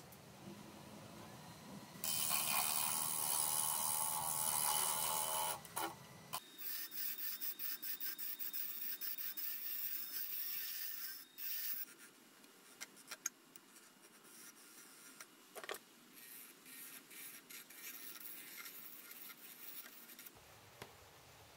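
Benchtop wood lathe spinning a block of wood while a hand-held turning tool cuts it: a loud, steady scraping cut begins about two seconds in and lasts about four seconds, followed by a run of quick short scrapes and ticks as the tool is worked along the piece, then quieter, occasional cuts.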